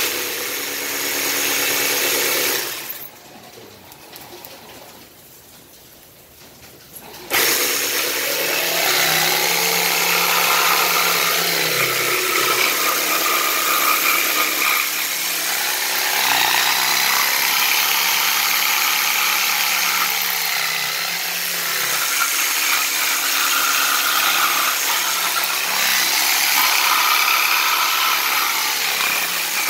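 Ryobi jigsaw with a thin Bosch scroll blade cutting tight curves in a wooden board. It cuts briefly, stops for about four seconds, then starts again and cuts steadily to the end, its whine shifting in pitch as the blade follows the curve.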